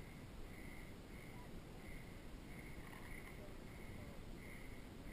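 Quiet woodland ambience: a faint high-pitched buzzing call repeats in short pulses, roughly once a second, over a low rumble of wind or mask-camera handling.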